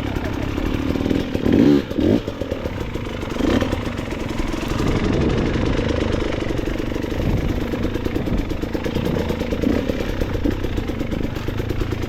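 Enduro dirt bike engine running at low revs on a descent, with a few short throttle blips in the first few seconds.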